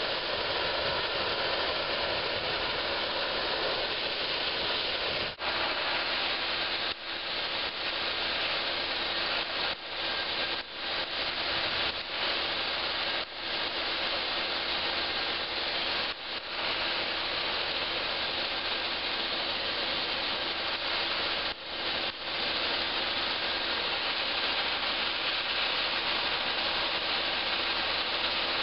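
Sandblaster nozzle blasting abrasive onto a metal demountable clincher rim: a steady loud hiss, cut off briefly several times in the middle stretch as the blast is let off and resumed.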